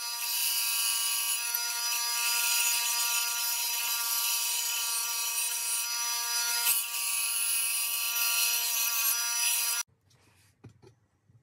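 Benchtop band saw running and cutting through a wooden board: a steady whine under the hiss and rasp of the blade in the wood. It stops suddenly near the end.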